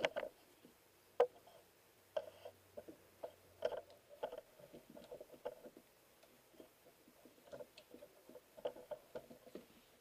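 Faint scattered clicks, taps and rubbing of gloved hands handling a rubber coolant hose in a car's engine bay, with one sharper click about a second in.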